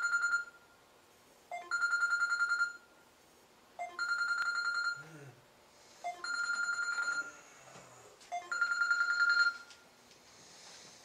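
Electronic ringer trilling in repeated bursts of about a second, one starting every two seconds or so, four times.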